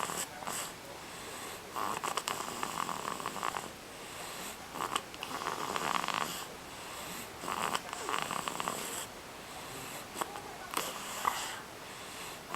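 A five-month-old baby with a fever snoring in its sleep, one snore on each breath roughly every two and a half to three seconds.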